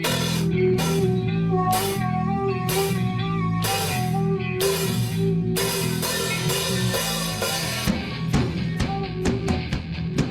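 Rock band playing: drum kit and guitar, with cymbal crashes about once a second, the drumming turning to quicker, busier hits about eight seconds in.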